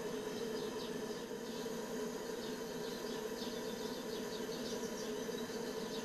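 Steady hum of the vertical fire-tube boiler's pressurized liquid-fuel burner firing while the boiler heats up, with faint high chirps over it.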